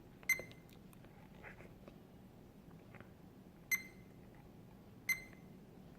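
Fluke 87V digital multimeter beeping as its front-panel buttons are pressed: three short, high beeps, each starting with a click, about a third of a second in, near four seconds and just after five seconds.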